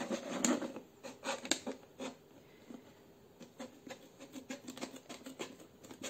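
Small scissors snipping the thin plastic of a drink bottle to widen a hole, in irregular clicks with the bottle crackling as it is handled. The snips thin out for a while in the middle, then pick up again.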